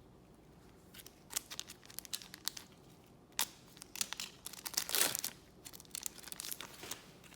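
Trading cards being handled and flipped through, with irregular crisp rustles and clicks of card stock and wrapper, loudest in a longer rustle about five seconds in.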